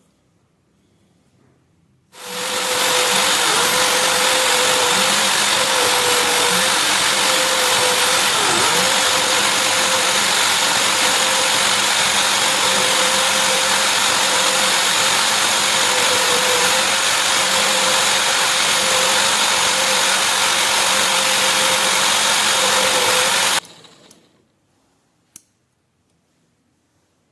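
An electric power tool switches on about two seconds in, runs at a steady speed with a strong hiss and a steady hum, then switches off near the end and winds down, followed by a single click.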